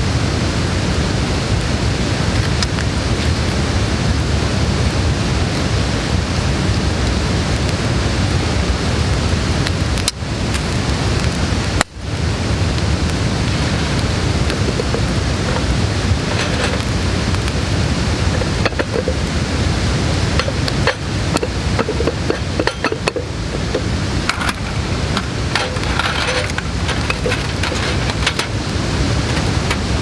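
Wood campfire burning in a metal fire pit: a steady rushing hiss with scattered crackles. It cuts out briefly twice.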